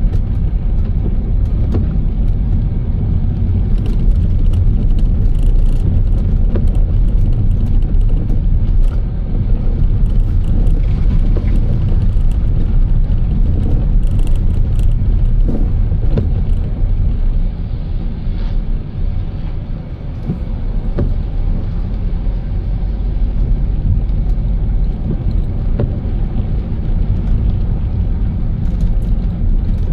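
Steady low rumble of a car on the road: engine and tyre noise. It eases off briefly about two-thirds of the way through, then returns.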